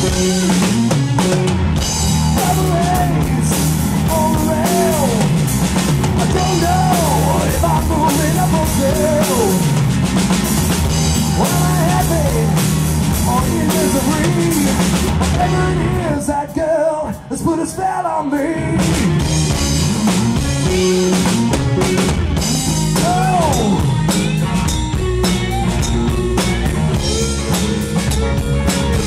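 Live rock band playing loud: lead electric guitar on a Stratocaster-style guitar with bending notes, over drums and bass. The band drops out briefly about two-thirds of the way through, then comes back in.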